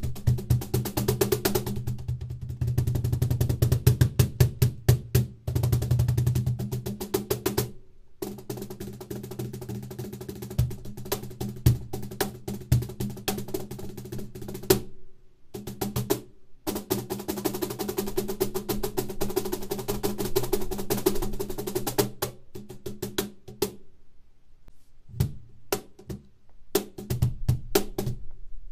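Meinl cajon played with bare hands: fast runs of deep bass strokes and crisp, bright slaps on the wooden front plate, with a few brief pauses between phrases.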